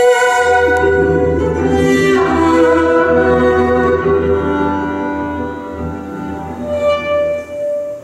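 Violin bowed in long, held notes over a low sustained drone, the closing phrase of a slow ballad; the playing eases off in the second half and ends on a last held note near the end.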